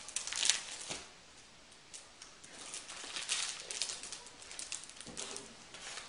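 Paper rustling and crinkling as a printed manual and loose paperwork are handled and lifted out of a cardboard box, in short irregular bursts with a quieter stretch between about one and two and a half seconds in.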